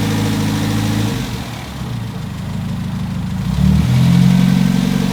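Toyota KP30's 4K inline-four running through its new extractor exhaust. The engine note drops away about a second in, then comes back strong with a low surge shortly before the end, as when the throttle is eased off and opened up again.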